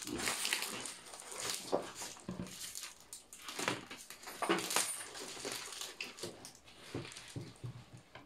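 A cardboard parcel and its wrapping being torn and cut open by hand: irregular rustling, scraping and tearing of tape and packing material, with a few sharper knocks as the box is handled.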